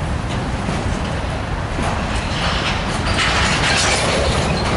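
Freight train of open-top gondola cars rolling past: a steady rumble of steel wheels on rail with light clicking. From about two and a half to four seconds in, the wheel and rail noise grows louder and brighter.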